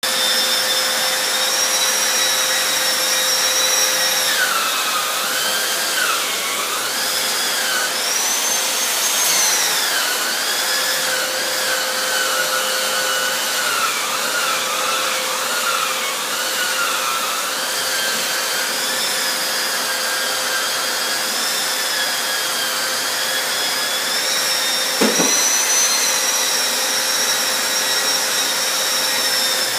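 Festool Planex long-reach wall sander running with its dust extractor pulling air through the hose: a steady whir and rushing hiss, the motor's whine wavering and dipping in pitch now and then. A single knock about 25 seconds in.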